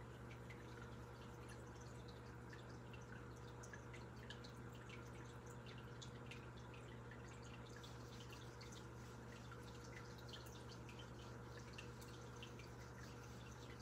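Faint scattered wet ticks and drips at a sink while hands are lathered with soap, over a steady low hum.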